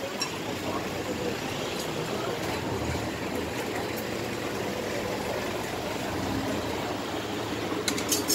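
Busy street ambience: steady traffic noise with a low engine rumble, and a few sharp clicks near the end.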